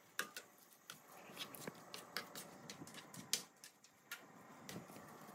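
A cooking spoon stirring rice, sausage and shrimp in a frying pan: quiet, irregular clicks and scrapes of the utensil against the pan.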